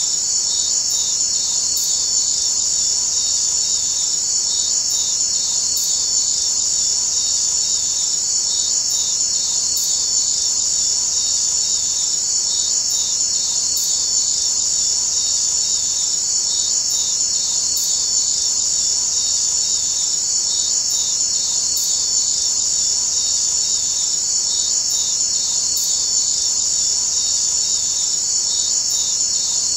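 A steady, unbroken chorus of high-pitched chirping insects, with an even, fast pulsing texture that does not change.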